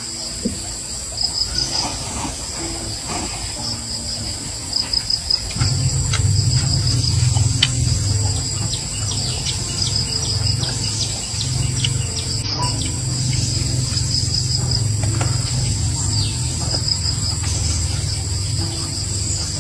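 A steady chorus of insects trilling in a fast pulsing rhythm, with scattered small clicks. About five seconds in, a low rumble starts and becomes the loudest sound.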